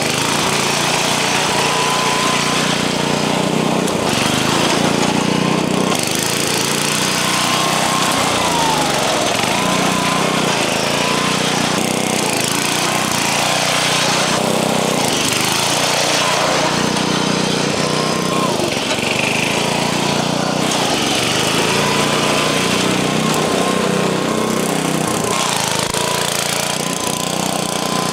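Old riding lawn mower's small engine running under load, its speed rising and falling again and again as the mower is driven hard and popped into wheelies.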